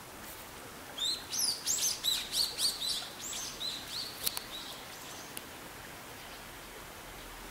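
A small songbird sings a quick run of high chirping notes, starting about a second in and lasting about four seconds, over a steady background rush of flowing water.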